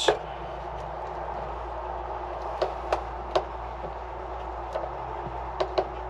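Several light, sharp plastic clicks and ticks as the red snap cover of a mega-fuse holder is handled, over a steady background hiss and low hum.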